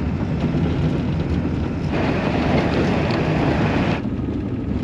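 Steady low drone of a 1996 Ford F350's 7.3 Powerstroke diesel and road noise from a truck on the move, with a louder rushing noise from about two to four seconds in.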